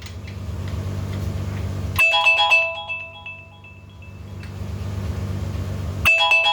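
Phone alarm ringtone: a short chiming melody repeating about every four seconds, with a low buzz swelling between the rings.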